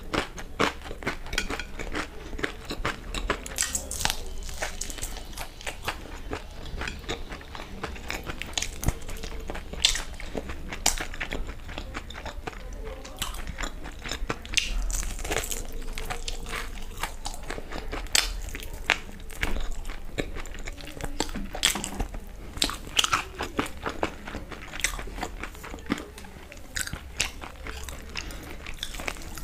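Close-miked eating sounds: biting into and chewing a fried chicken lollipop, with many irregular crunches and mouth clicks.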